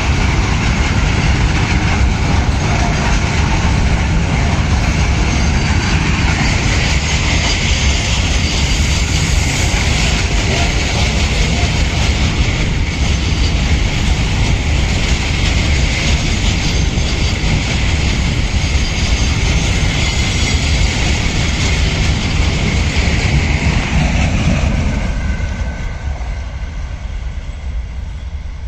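Loaded coal wagons of a freight train rolling past on the rails, a loud steady noise of wheels on track that fades away near the end as the train draws off.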